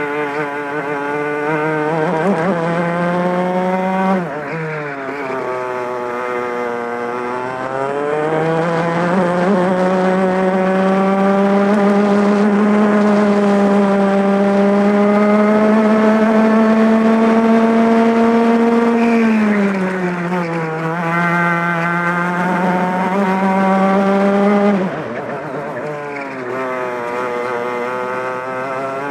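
Two-stroke racing kart engine at race pace, heard from the driver's seat. Its pitch drops sharply when the driver brakes into corners (about four seconds in, around nineteen seconds and again near twenty-five) and climbs steadily as it accelerates out. It holds highest through the long middle stretch.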